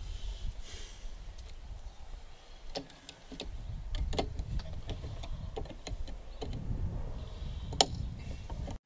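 Scattered light clicks and taps of small hardware being handled, over a steady low rumble.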